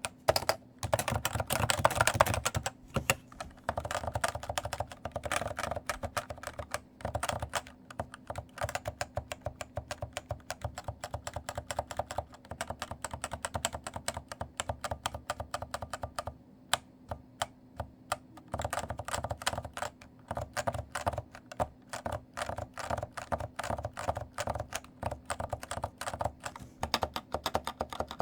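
Typing on a stock Cooler Master Novatouch TKL keyboard with Topre electrostatic capacitive switches: quick runs of keystrokes with the rattle of its light keycaps. The typing thins to a few scattered strokes about two-thirds of the way through, then picks up again.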